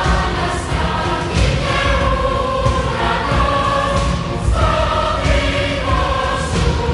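Choir singing a Greek song in long held notes over instrumental accompaniment.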